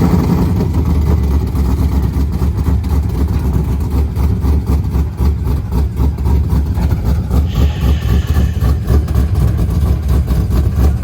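Pontiac G8's engine, fitted with a new big camshaft, idling just after start-up with a choppy, lopey idle.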